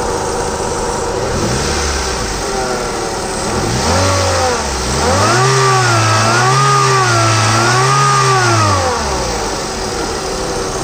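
Hyundai i10's four-cylinder petrol engine idling, then revved: short blips, then the pitch rising and falling about four times between roughly five and nine seconds in, before it drops back to idle. The owner puts the noise down to the timing side and the AC compressor.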